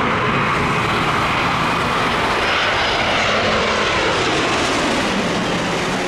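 Jet airliner passing low overhead: a loud, steady jet roar with a whine that falls in pitch as it goes by.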